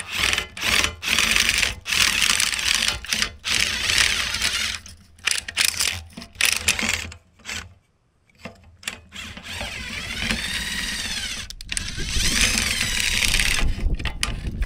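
Cordless impact driver running a rusted scissor jack's threaded rod in and out in repeated short bursts, working lube into the freshly freed, formerly seized threads. After a short pause about eight seconds in, it runs longer, its motor whine rising and falling.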